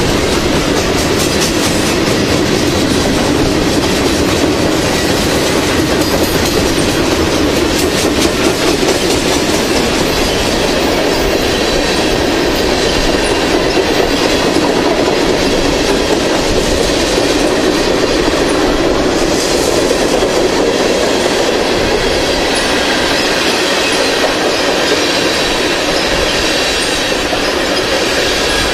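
Freight cars of a long train rolling past close by: a steady, loud rumble of steel wheels on the rails, with faint high ringing tones above it.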